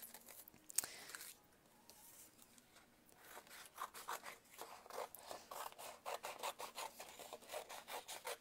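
Small scissors snipping through heavy watercolour paper: a quick run of short, faint cuts that starts about three seconds in.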